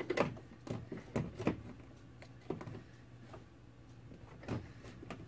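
A 12 mm ratcheting wrench clicking in short, irregular spurts with light metallic knocks as the shifter plate's nuts are snugged up, over a faint low hum.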